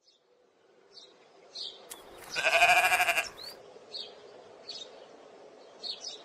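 A sheep bleats once, a high, wavering call of about a second, a little over two seconds in. Short bird chirps come now and then around it.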